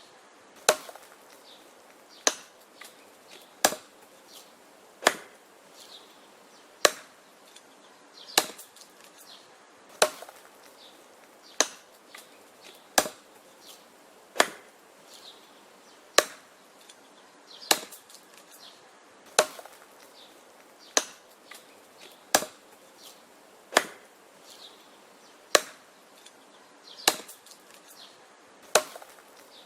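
Wood being chopped with an axe: sharp, even strikes into the wood about once every second and a half, some followed by a few faint cracks or knocks.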